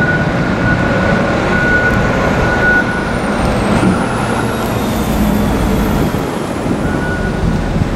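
Diesel engine of a container-handler lift truck running under load as it drives with a container raised on its mast. A high-pitched tone comes and goes over the engine noise.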